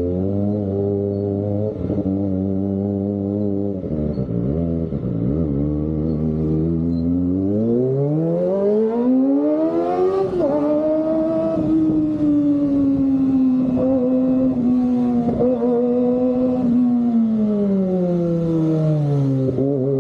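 Kawasaki ZX-25R's inline-four engine running through an Austin Racing exhaust while riding. The engine note holds steady at first, then climbs over a couple of seconds about halfway through, stays high, and drops again near the end.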